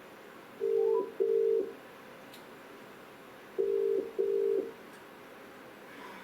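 Telephone ringing tone of an outgoing call: two double rings about three seconds apart, each a pair of short, steady, low tones in the UK and Irish ring-back pattern, while the call waits to be answered.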